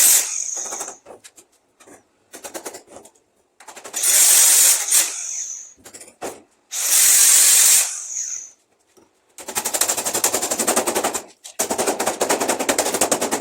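Electric arc welding crackling and sputtering in short runs, starting and stopping several times; the last two runs are longer, dense, rapid crackles of about two seconds each.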